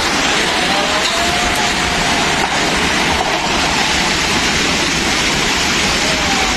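Steady roar of a rain-swollen flash flood: muddy water and landslide debris rushing down a slope.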